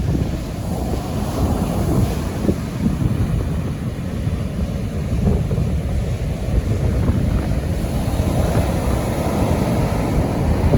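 Pacific surf rolling in on a rocky beach, with strong wind buffeting the microphone in a continuous low rumble.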